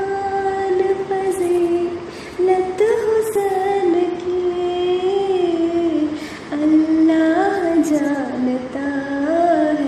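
A woman's solo voice singing a naat in long, drawn-out melodic phrases with ornamented turns. She breaks briefly for breath about two seconds in and again past six seconds.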